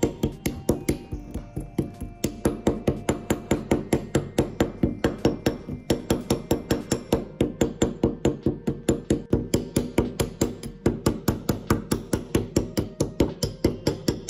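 Small hammer tapping rapidly and steadily on a small vise caked in rust and dried dirt, about four to five blows a second, knocking the crust off the metal.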